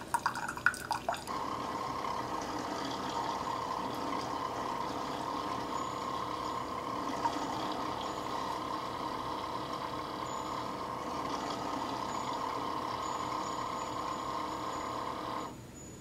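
AICOOK single-serve coffee maker brewing a K-cup: a steady stream of coffee running into a glass cup, after about a second of irregular dripping and splashing. The sound cuts off suddenly near the end, when the machine runs out of water and shuts itself off.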